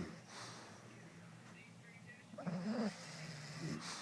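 A dog snoring in its sleep: breathy hissing breaths, with one louder, wavering snore about two and a half seconds in.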